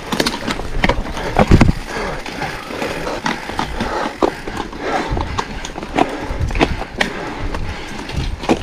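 Mountain bike rattling and clattering over rough trail during a marathon race: a run of irregular clicks and knocks, the loudest about a second and a half in.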